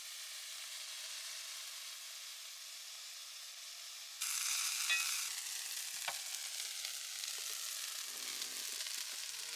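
Food sizzling in a frying pan, a steady hiss that gets louder about four seconds in, with a few light clicks of a utensil against the pan.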